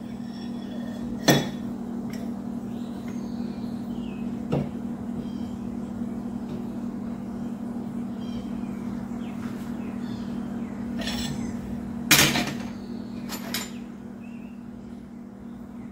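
Sharp metal clanks as a 1/4-inch stainless steel rod is bent in a steel bench vise with a tube slipped over it for leverage. There are four clanks: one near the start, one about four seconds in, and the loudest with a short pair about twelve seconds in. A steady low hum runs underneath.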